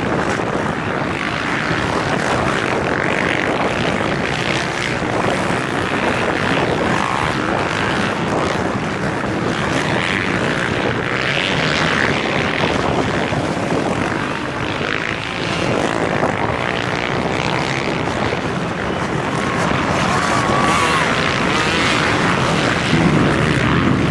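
Many off-road motorcycle engines running together across the sand dunes, a steady mechanical drone that grows slightly louder near the end as riders come closer.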